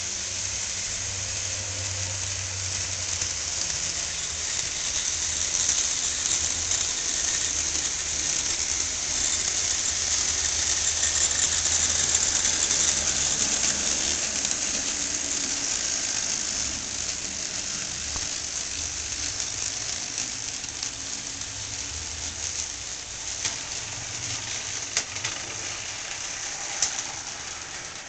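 Model train diesel locomotives pulling a short train along the track: a steady whir and clatter of motors and wheels on rail that grows louder as the train comes close around the middle, then eases off, with a few sharp clicks near the end.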